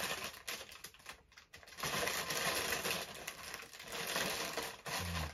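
Clear plastic bag rustling and crinkling as it is handled, in three spells with short pauses about a second and about three and a half seconds in.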